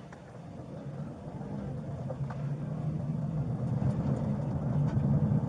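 Car engine and road noise heard from inside the cabin of a moving car, a steady low hum that grows louder through the stretch.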